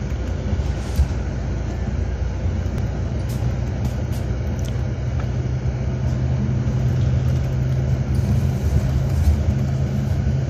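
Steady cabin noise of a moving bus: a low engine hum with tyre and road noise heard from inside.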